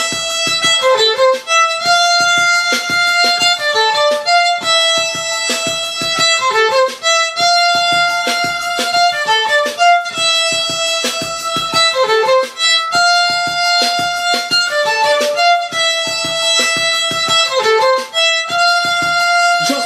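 Violin bowed in a short melodic phrase played over and over, each note held briefly before the next.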